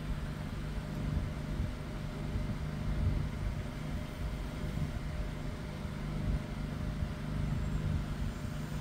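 Electric fan running: a steady low motor hum with an even airy hiss and a fluctuating low rumble beneath.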